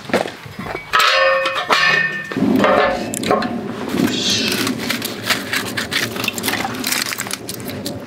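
Dry fallen leaves crunching as they are brushed aside, then about a second in a metallic clang with a short ringing as firewood is set into a metal fire pit, followed by a steady rustling and scraping of wood and shavings being arranged.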